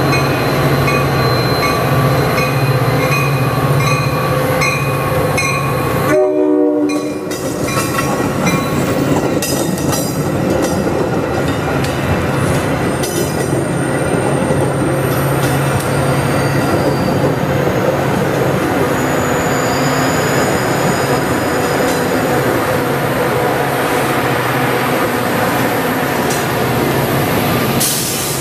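Passenger train passing close by: a loud, steady rush of wheels on rail with the low steady drone of the locomotive. A regular clicking, about one and a half a second, runs through the first six seconds, and the sound drops briefly around six seconds in.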